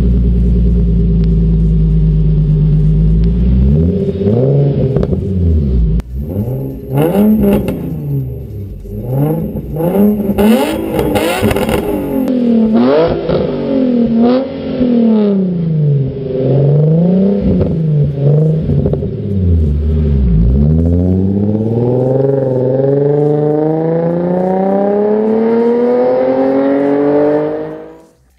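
Infiniti FX35's 3.5-litre V6 through an ARK GRiP cat-back exhaust with a test pipe in place of the catalytic converter. It idles steadily, is revved in a string of quick blips from about four seconds in, then makes one long rising pull as the car accelerates away, fading out at the end.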